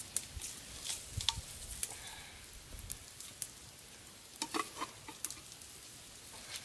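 A knife stirring and scraping inside a small pot, with a cluster of knocks about four and a half seconds in. Scattered sharp crackles from a wood fire.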